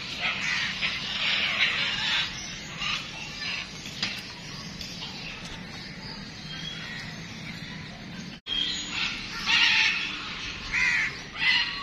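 Birds calling in short, repeated calls, with a brief break in the sound about two-thirds of the way through.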